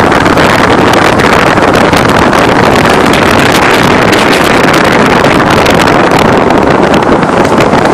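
Loud, steady rush of wind over a microphone mounted low on the side of a moving Chevy Suburban, mixed with the noise of its front tyre rolling on asphalt.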